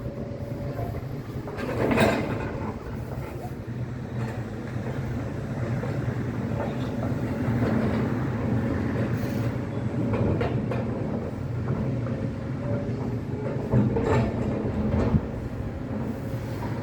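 Heavy tracked excavator's diesel engine running steadily during building demolition, with crashes of falling debris about two seconds in and again near the end.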